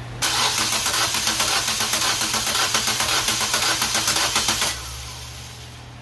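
Starter cranking the Nissan Versa's HR15 four-cylinder engine during a compression test, with an even, fast pulse as the cylinders come up on compression. It does not fire, and the cranking stops abruptly after about four and a half seconds.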